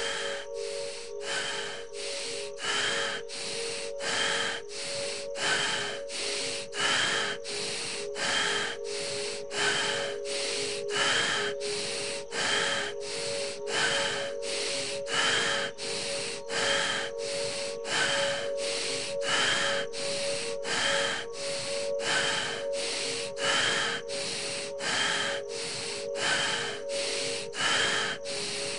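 Deep, fast, rasping breaths in and out at an even, rapid pace, about three breath sounds every two seconds: the hard panting of a mountain-climbing breathing exercise. A steady drone of background music sounds beneath.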